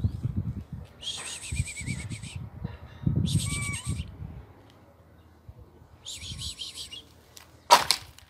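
Small birds chirping in three short bursts of twittering, over a low rumble, with one sharp knock near the end that is the loudest sound.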